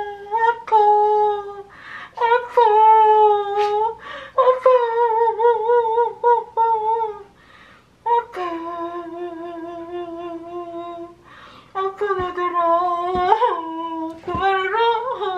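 A woman's pretend crying: a drawn-out, wavering wail muffled behind the hands over her face. It comes as a series of long held moans, a second or more each, with short breaks between.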